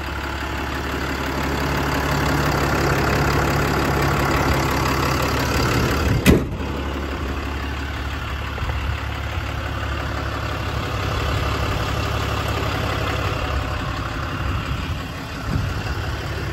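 6.7 Cummins straight-six diesel of a Ram 5500 idling steadily, with a single sharp knock about six seconds in.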